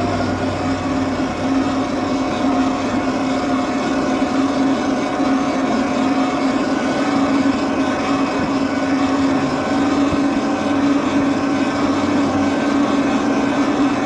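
Electric bike in motion: a steady motor whine holding one pitch, over wind and tyre noise.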